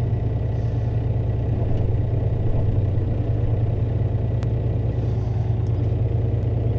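Tractor engine running steadily, heard from inside the cab, with a low, even hum. A single sharp click comes about four and a half seconds in.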